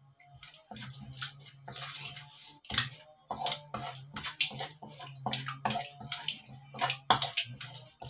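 Wooden spatula scraping and stirring a wet spice marinade around a steel wok, in repeated short strokes a few times a second, over a low steady hum.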